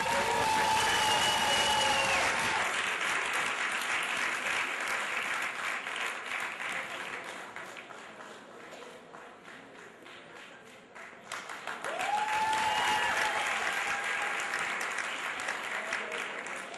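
Audience applauding. A long, high, steady call rings out over the clapping at the start and again about twelve seconds in. The clapping thins out around ten seconds, then picks up again.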